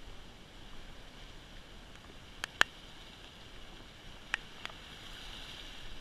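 Steady wash of surf against the rocks, with two pairs of sharp clicks from handling a hooked tautog while unhooking it. The second click, about two and a half seconds in, is the loudest; the second pair comes about two seconds later.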